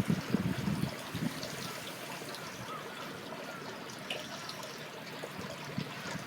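Steady rush and trickle of water in a swollen, high-running canal, with a few faint high chirps.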